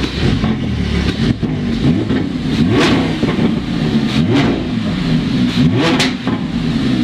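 Lamborghini Huracan's V10 engine running and being revved, its pitch climbing and dropping several times, with sharp crackles at the top of the revs about three and six seconds in.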